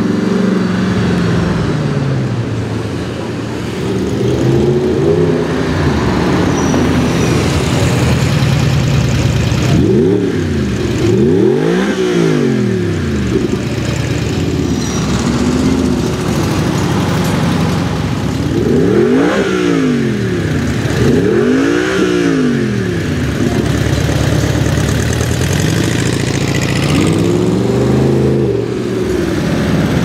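Audi R8 Spyder's engine revved hard again and again at low road speed, each rev rising in pitch and falling back. The biggest revs come around the middle of the stretch and near the end.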